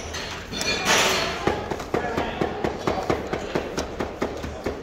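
Serving clatter: a rustling burst about a second in, then a quick run of sharp clicks and taps, about four a second, from a metal skimmer against the plov kazan and plastic takeaway containers being handled.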